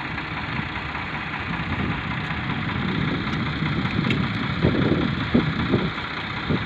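Ford farm tractor's diesel engine idling steadily, with a few short, louder dull sounds in the second half.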